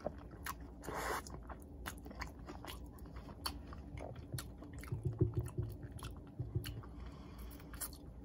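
Close-miked chewing of a mouthful of poutine (soft fries, gravy and cheese curds), with many small wet mouth clicks. Louder mouth sounds come about a second in and again around five seconds in.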